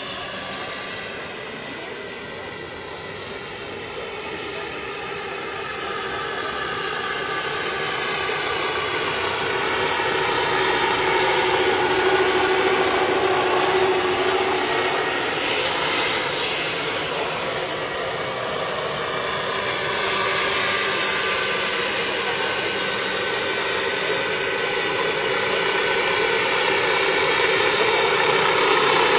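Jakadofsky model gas turbine and main rotor of a large radio-controlled scale EC-135 helicopter running in flight, a steady turbine whine with rotor noise. It grows louder through the first half, peaks about twelve seconds in, and swells again near the end.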